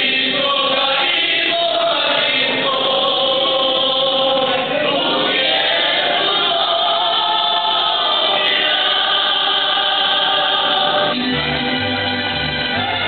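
Mariachi voices singing together in harmony, a man's voice holding long notes with no instruments underneath. About eleven seconds in, guitars and a deep plucked bass come in.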